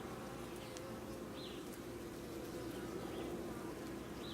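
Honey bees from an opened hive buzzing in a steady, continuous hum.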